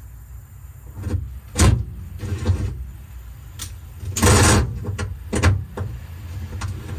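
Parts being handled and fitted into place: a run of knocks and clunks, the loudest about a second and a half in, and a short scraping rush around four seconds in, over a steady low hum.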